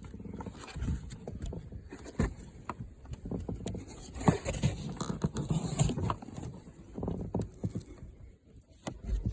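Plastic trim panel being worked loose and removed by hand: irregular clicks, knocks and scraping.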